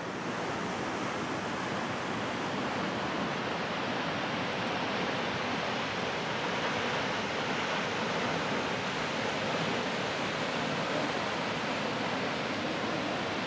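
Spahats Falls, a tall waterfall dropping into a rock canyon, rushing steadily as an even, unbroken wash of water noise.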